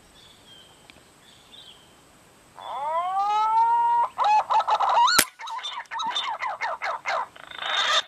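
Green pigeon (punai) calls: one long whistle that glides up and holds, then a quick run of warbling, chattering notes. A single sharp click comes about five seconds in.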